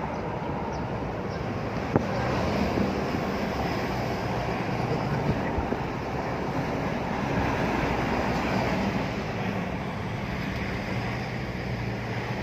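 Steady driving noise of a 2022 Isuzu D-Max pickup with its 3.0 L 4JJ3-TCX turbodiesel: engine hum and road noise with a low drone, and one sharp click about two seconds in.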